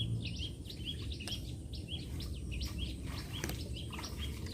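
A bird chirping over and over, short high calls about two or three a second, over low background noise.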